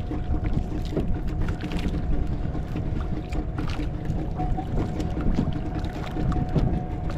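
Sounds of a wooden outrigger fishing boat at sea: a steady low rumble with a faint continuous hum, water washing against the hull, and scattered light clicks and knocks.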